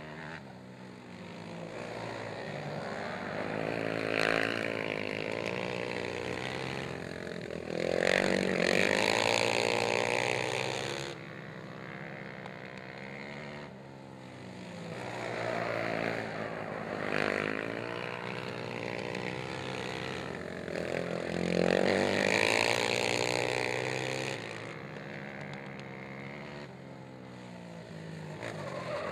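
Racing quad (ATV) engines revving hard and easing off as the quads race past, the engine note rising and falling in repeated swells. It is loudest about eight to eleven seconds in.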